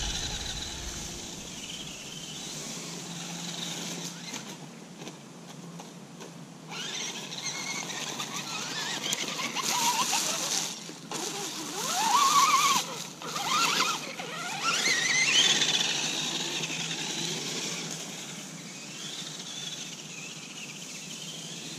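Electric motor and gear drivetrain of an Axial RR10 Bomber RC rock racer with a Hobbywing setup, whining as it drives. The pitch rises and falls with the throttle, and it is loudest about halfway through as the car runs close by, then fades as it drives away.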